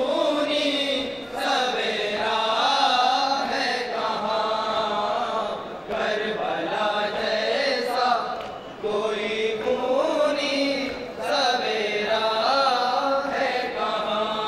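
Group of male mourners chanting a noha (Urdu lament) refrain together, in phrases a few seconds long with short breaks between them.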